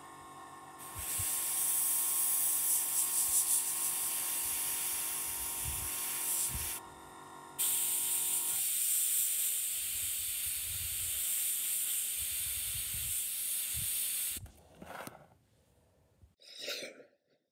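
Airbrush spraying paint: a steady hiss of air, in two long spells with a short break about seven seconds in, stopping about fourteen seconds in. A low steady hum runs underneath and stops about halfway.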